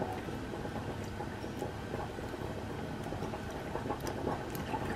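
Milk being poured from a large plastic milk bottle into a plastic measuring jug, quietly, over a steady low background rumble.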